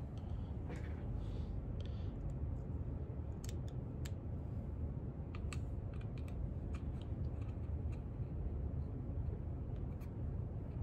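Scattered small clicks and light handling noises of a tiny screw being driven into a shotgun's bolt release button, heard over a steady low hum. The clicks come mostly in the middle of the stretch.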